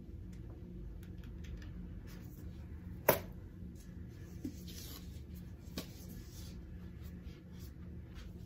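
Items being handled and rummaged through in a subscription box: faint rustling and light knocks of packaging and cards, with one sharp click about three seconds in, over a steady low room hum.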